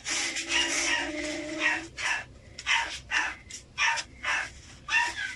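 Feral kittens hissing and spitting in a rapid run of short, sharp bursts, about two or three a second, warning off the hand reaching for them. A low drawn-out growl sounds under the first two seconds.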